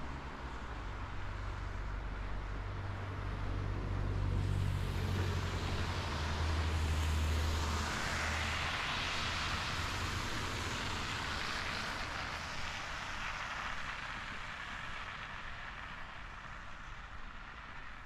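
Road traffic passing on a snowy street: a low engine rumble, then the rush of tyres that swells about halfway through and slowly fades.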